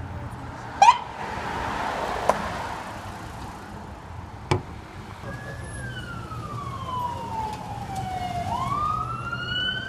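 Police car siren wailing from about five seconds in: one slow falling sweep, then a rise near the end. A short, sharp, rising chirp about a second in is the loudest sound, over the steady hum of street traffic.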